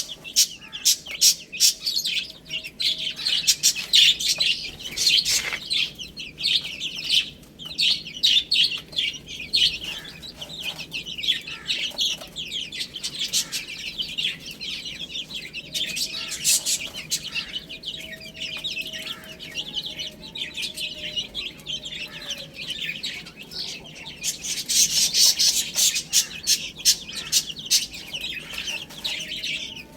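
A group of baby chicks peeping continuously in dense, overlapping high chirps, mixed with sharp clicks, most of them in the first few seconds and again near the end.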